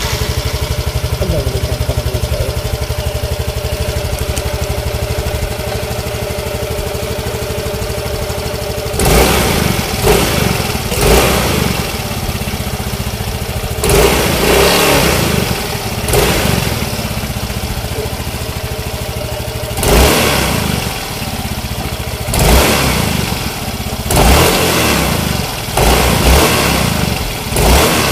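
Yamaha Mio i125 scooter's 125 cc single-cylinder engine running on its stand with the CVT cover off, after a new RS8 CVT set has been fitted. It idles steadily, then from about nine seconds in it is revved in about ten short throttle blips.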